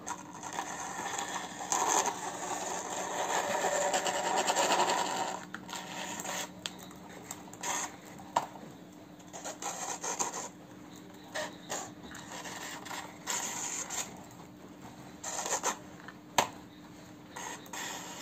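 Plastic toy dump truck pushed by hand across a hard floor, its plastic wheels and body rolling and scraping. A longer stretch of scraping in the first five seconds gives way to short scrapes and sharp clicks.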